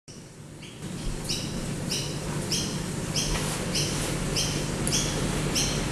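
Repeated short high-pitched chirps, about two a second, over a low steady hum.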